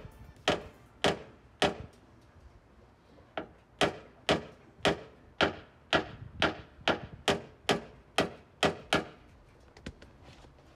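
Paintless dent repair tool tapping on the dented front fender body line of a Tesla Model 3: three light taps, a short pause, then a steady run of about a dozen at roughly two a second.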